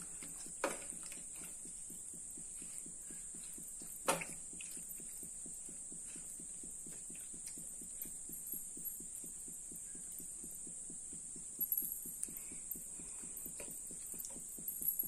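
Wooden spatula stirring chicken pieces in a non-stick frying pan, with two sharp knocks against the pan, one just after the start and one about four seconds in, and a few light clatters near the end. Under it runs a steady high whine and a fast, even low pulsing.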